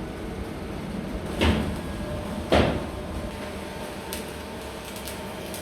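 Two sharp knocks about a second apart over a steady background hum, followed by a few lighter clicks.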